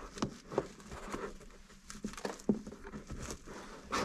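Scattered small clicks, taps and rustles of plastic dashboard trim being handled and worked loose with a tool.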